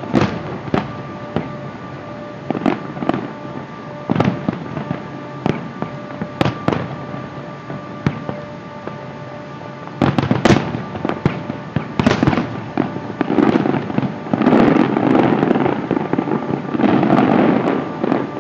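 Fireworks display: aerial shells bursting in a series of sharp, irregularly spaced reports that come closer together about ten seconds in. Near the end they run together into a long stretch of dense crackling.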